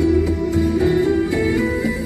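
Background music led by plucked guitar over a steady bass.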